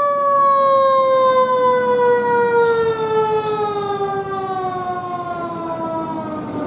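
Fire truck's mechanical siren winding down: one long tone whose pitch falls slowly and steadily, growing somewhat quieter toward the end.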